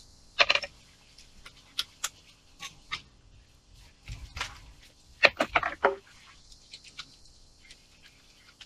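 Scattered small clicks and clinks of steel screws and a cordless drill being handled as a screw is fitted onto the driver bit, with a quick run of clicks about five seconds in.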